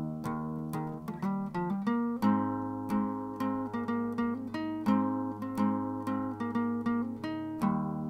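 Background music: a picked acoustic guitar pattern, changing chord about two seconds in and again near the end.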